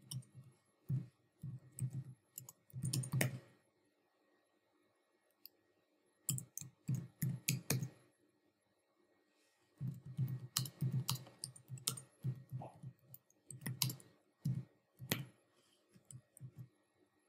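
Typing on a computer keyboard: rapid key clicks in three bursts, with pauses of a second or two between them.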